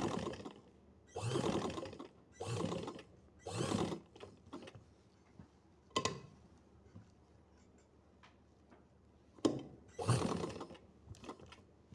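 Sewing machine stitching through cotton fabric in short runs of about a second or less: four runs in the first four seconds, and another about ten seconds in. Between them are pauses with a sharp click about six seconds in.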